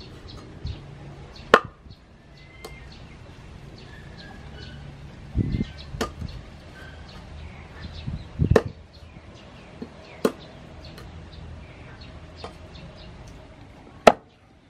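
Meat cleaver chopping chicken wings into pieces on a wooden cutting board. Sharp, irregular chops come a couple of seconds apart, with duller thuds between them; the loudest chop comes near the end.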